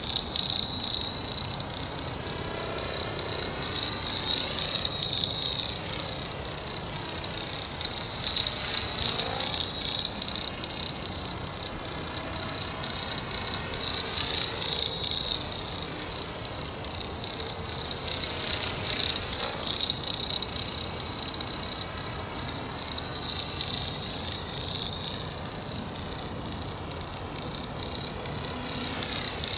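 Accurate 400 RC helicopter hovering: a steady high-pitched whine from the rotor drive, swelling and fading slowly as the helicopter shifts about. It is running with the abnormal noise and vibration left by a crash.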